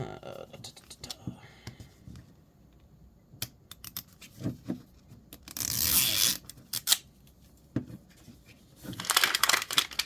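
Plastic wrapping from a Miniverse capsule being torn open: scattered clicks and taps of small plastic parts, then two longer tearing, crinkling bursts, one about six seconds in and a louder one near the end.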